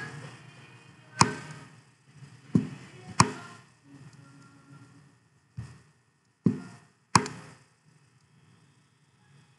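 Six sharp taps at uneven intervals, each dying away quickly, over a faint background.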